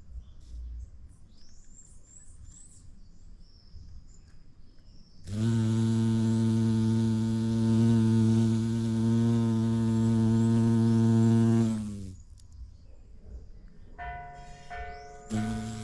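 A bumblebee buzzing close by: a loud, steady, low hum with many overtones that starts abruptly about five seconds in and stops about seven seconds later. Birds chirp before it, and bells begin ringing near the end.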